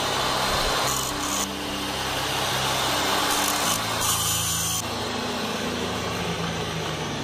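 Electric angle grinder with a thin disc cutting into the metal end of a control cable: a steady, harsh grinding over the motor's hum.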